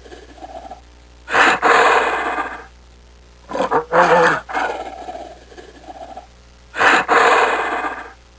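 A large animal calling loudly three times, each harsh, noisy call lasting about a second, with softer low grunts in between.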